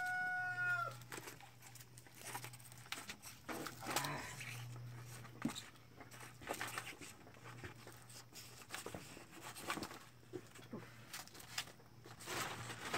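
A rooster's crow, one long held call, ends about a second in. After it come faint scattered clicks and rustles from hands picking grubs out of hornet comb, over a steady low hum.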